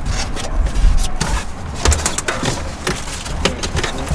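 Irregular clicks, knocks and rustling from hands pushing wiring harnesses and cables into a car's dashboard cavity and against its plastic trim, over low bumping rumble.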